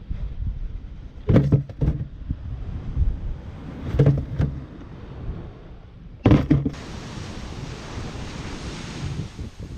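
Wind buffeting the microphone over breaking surf, broken three times by loud, short bursts of knocking and rustling close to the microphone, at about one and a half, four and six seconds in. From about seven seconds in, a steady hiss of surf.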